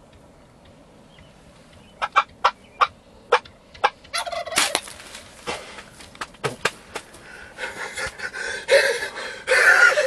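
Wild turkey tom giving several short, sharp calls. From about four seconds in comes the loud, ragged flapping and flopping of the arrow-shot bird beating its wings in the grass.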